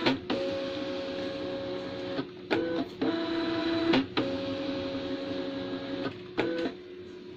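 Gprinter thermal label printer's paper-feed motor whirring as it advances newly loaded sticker paper, in five runs (the longest about two seconds) separated by short pauses, as the printer checks that the paper is seated correctly.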